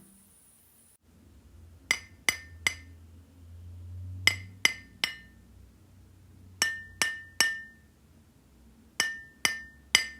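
A plaster (gypsum) object being tapped: four groups of three sharp, short clinks, each with a brief, high ring.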